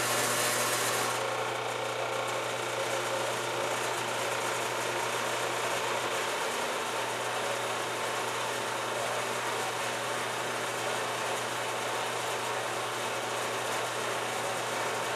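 Small metal-cutting cutoff bandsaw running, its blade sawing steadily through a metal block clamped in the vise, over a steady motor hum.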